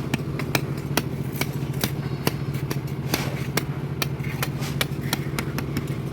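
Engine of concrete-pouring machinery running steadily at one speed, with sharp clicks or knocks coming fairly regularly about twice a second.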